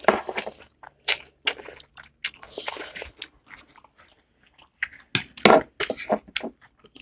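Close-miked chewing and wet mouth sounds of someone eating: irregular smacks and crunchy bites with a couple of longer noisy stretches, about half a second and a second long.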